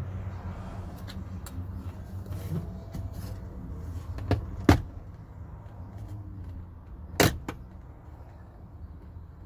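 Sharp clicks and knocks of hand work on a car's rear door panel, two of them loud, about two and a half seconds apart, each with a lighter click close by, over a steady low hum.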